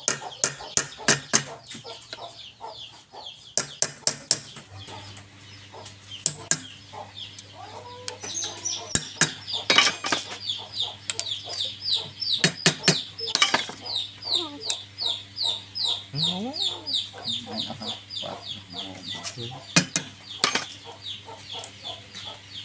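Chickens or chicks peeping in quick short falling chirps, with many sharp knocks mixed in. A steady low hum starts about five seconds in.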